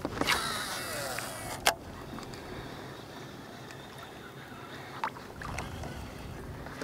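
Small waves lapping against the plastic hull of a sit-on-top fishing kayak, with a sharp click about one and a half seconds in and a fainter one later.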